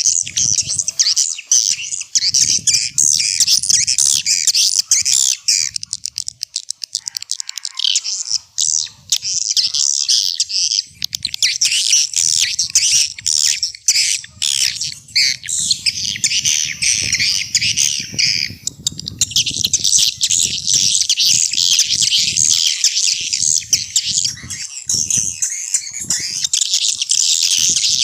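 Edible-nest swiftlets twittering in a dense, continuous chorus of high chirps: a swiftlet call recording of the kind played to lure swiftlets into a nesting house.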